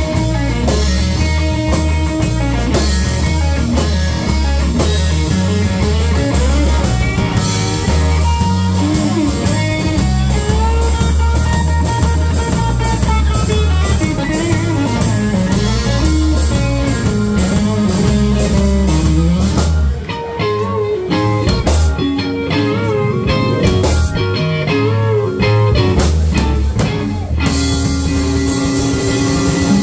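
Live blues-rock band: a Stratocaster-style electric guitar plays lead lines with bent notes over a drum kit. About twenty seconds in, the low end and drums drop back for several seconds, leaving the guitar more exposed, and the full band comes back in near the end.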